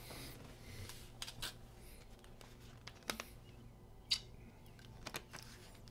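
A few sharp clicks at irregular intervals, about a second apart, over a low steady outdoor background. The loudest click comes about four seconds in.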